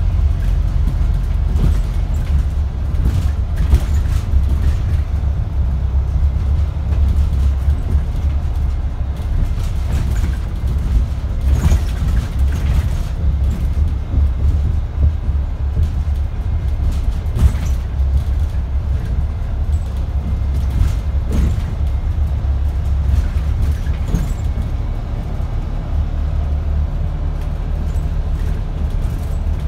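Wright StreetDeck double-decker bus's diesel engine and drivetrain droning low and steady while the bus drives along, heard inside the upper deck. Occasional short knocks and rattles from the body sound now and then, the clearest a little over a quarter and just over half the way through.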